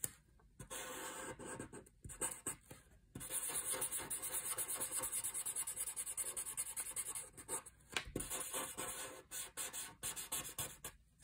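Fine-point Sharpie permanent marker scratching across paper in quick back-and-forth colouring strokes, broken by short pauses where the pen lifts.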